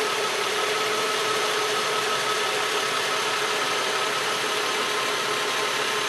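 Nissan Quest's VQ35 V6 engine idling steadily, a constant hum and hiss, while it warms up to bleed air from the refilled cooling system.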